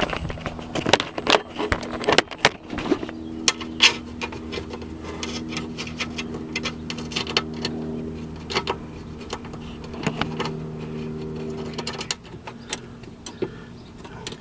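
Metallic clicks, clinks and knocks of hand tools and fasteners as a power window motor is bolted back into a car door, over a steady low hum that stops about twelve seconds in.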